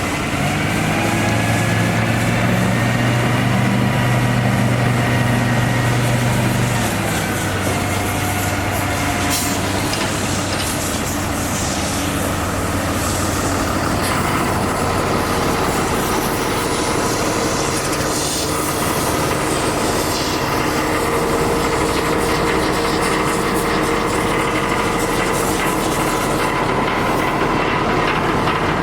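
Cummins B6.7L diesel engine of a dump truck running, a steady loud mechanical drone. A deep hum eases off about seven seconds in, and a higher steady whine runs through the second half.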